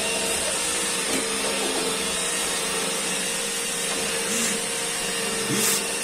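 iRobot Roomba 886 robot vacuum running: a steady whir with a constant hum.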